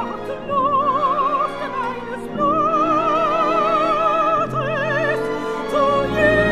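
Operatic soprano singing with orchestra: long held notes with a wide vibrato over sustained orchestral accompaniment.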